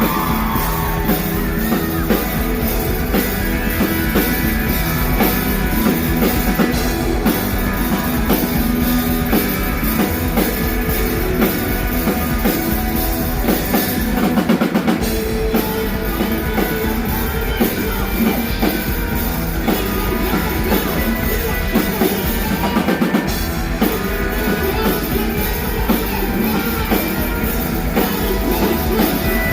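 A rock band playing live and loud, with a drum kit and electric guitar driving the music.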